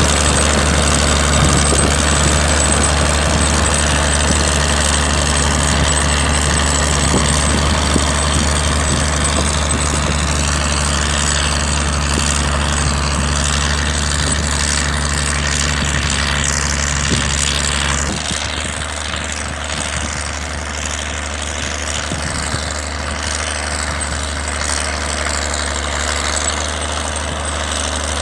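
Tractor engine idling with a steady low drone. About two-thirds of the way in, the sound changes abruptly and the low drone becomes weaker.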